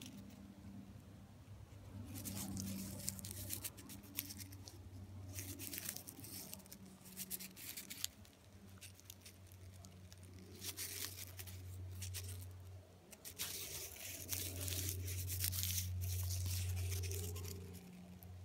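Dry shed snakeskin crinkling and rustling as it is handled in the fingers, in several separate bursts of crackle, over a steady low hum.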